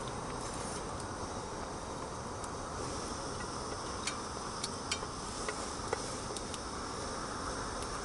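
Steady hiss of a gas camp stove burning under a steaming pot, with a few sharp crackles from the wood campfire between about four and six seconds in.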